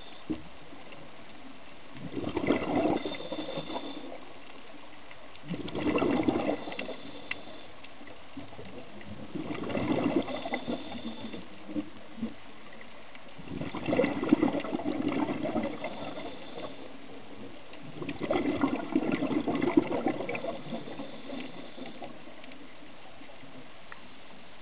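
A scuba diver breathing through a regulator: five exhalations bubble out in long gurgling bursts about four seconds apart, with a steady low background between them.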